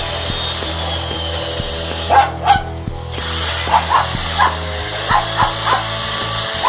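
Pug barking, about nine short barks starting about two seconds in, at a running power drill. The drill's steady whine runs underneath and stops briefly just after the first barks.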